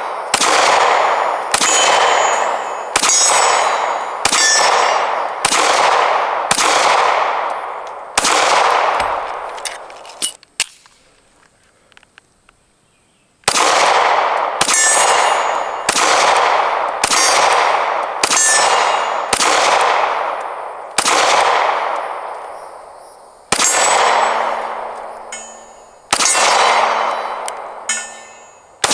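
SCCY DVG-1 9mm pistol fired in a steady string of about one shot a second, each shot followed by the clang of a hit steel target ringing out. The firing stops for about three seconds in the middle, then a second string follows at the same pace.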